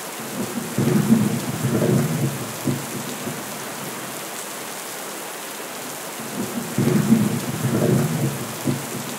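Thunderstorm: steady rain with two rolls of thunder, one about a second in and another about seven seconds in.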